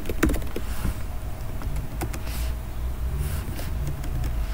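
A few scattered computer keyboard keystrokes over a steady low hum.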